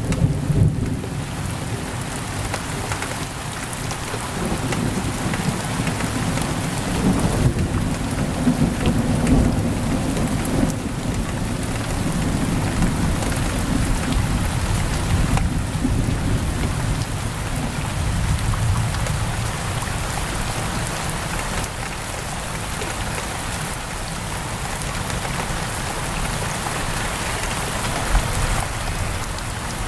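Heavy rain pouring against a window, with a low rolling rumble of thunder that eases off about two-thirds of the way through.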